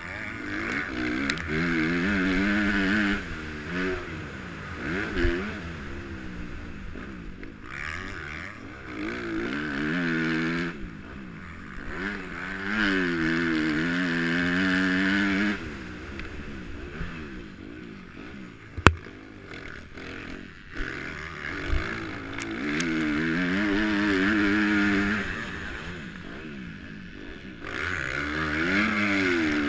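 Motocross bike engine ridden hard, its revs climbing and dropping over and over as the throttle opens and closes. There is a single sharp knock about nineteen seconds in.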